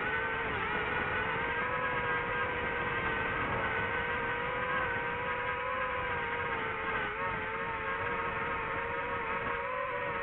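DJI FPV drone's motors and propellers whining steadily in flight, their pitch shifting slightly with throttle, with brief dips about half a second in and near 7 seconds.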